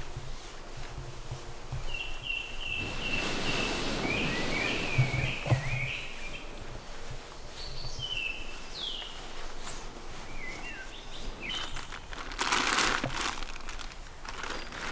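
Woodland birds calling: a quick run of short, repeated chirps in the first half, then a few scattered calls. Under them, rustling of fabric as a camper moves in a hammock under a tarp, with a couple of soft thumps midway and a louder rustle near the end.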